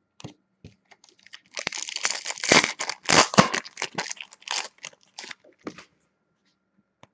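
Foil hockey card pack wrapper being torn open and crinkled in the hands, a dense crackling run with sharp snaps lasting a few seconds, followed by a few light clicks as the cards are handled.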